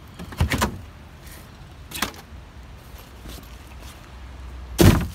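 A few light knocks and handling noises, then a loud, heavy thump near the end as the hiking boots land in a plastic trash bin.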